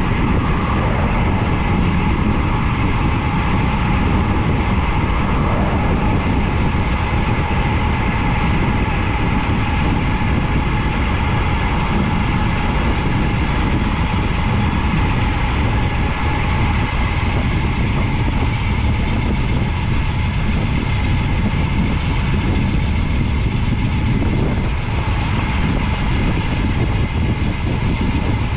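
Steady wind rush and road rumble on a bicycle-mounted camera microphone while riding downhill at speed.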